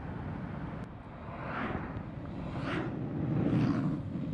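Road traffic passing on a paved road: a low engine and tyre rumble that swells to its loudest about three and a half seconds in, with a few hissing swells along the way.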